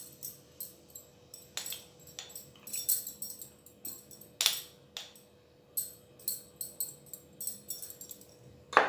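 Metal spoon clinking and scraping against a glass jar and plate while tamarind chutney is spooned out, with bangles jingling on the moving wrist: a string of light, irregular clicks and tinkles.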